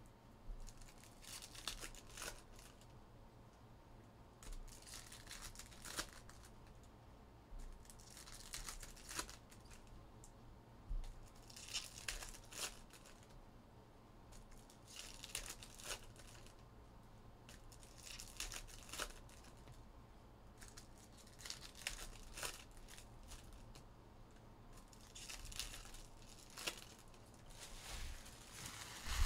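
2023 Bowman Chrome University football card packs being torn open one after another: short bursts of wrapper tearing and crinkling, about every three seconds.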